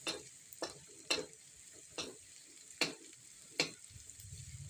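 Spatula scraping and knocking against a frying pan six times while garlic and shallots sauté in a little oil, sizzling faintly.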